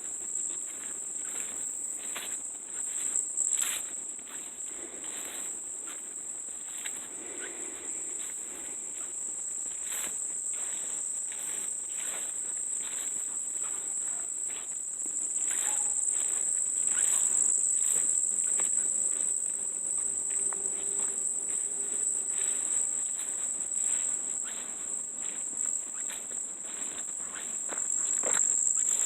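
Steady high-pitched insect chorus that keeps going without a break, with scattered light clicks and crackles throughout.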